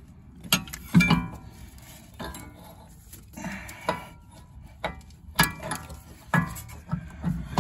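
A series of irregular metallic clinks and knocks, some ringing briefly, as a CV axle's splined stub shaft is worked and knocked into the wheel bearing hub.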